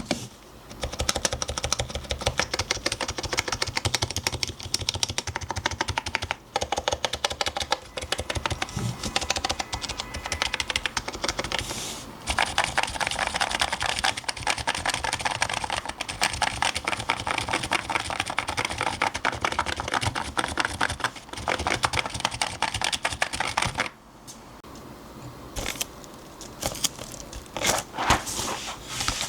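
Fast continuous typing on a custom keyboard with Dynacaps electrostatic-capacitive (Topre-style) switches and an aluminium plate. Rapid key-presses run steadily, drop off about 24 seconds in, and then come back as a few scattered, louder keystrokes near the end.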